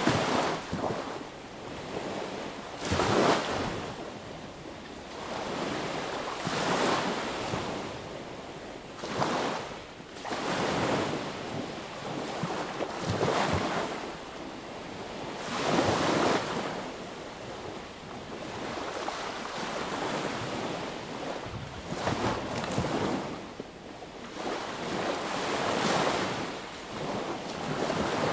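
Sea waves breaking and washing up on the shore one after another, a swell of surf about every three seconds that rises and falls away.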